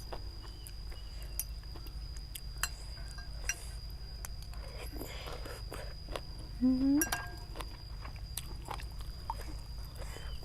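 Someone eating noodle soup close to the microphone: scattered light clinks of utensils against a bowl, with chewing. A brief rising pitched sound, the loudest event, comes about seven seconds in.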